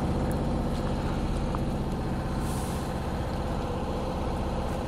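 Heavy diesel vehicle engine running steadily, with a short hiss of air about halfway through.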